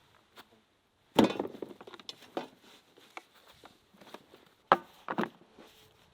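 A series of knocks and clicks: a sharp knock about a second in with a short ringing tail, scattered light clicks, and two quick knocks near five seconds.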